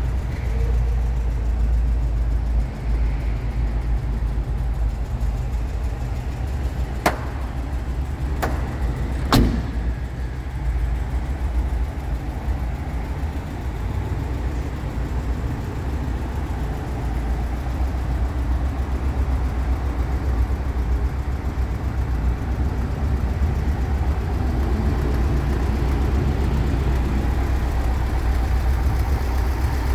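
Volkswagen Bus engine idling steadily with a low, even rumble. Three sharp clicks come about a quarter to a third of the way in.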